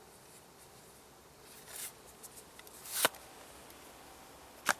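Rustling and handling sounds as a person bends down and moves things about, with a sharp click about three seconds in and two quick clicks near the end.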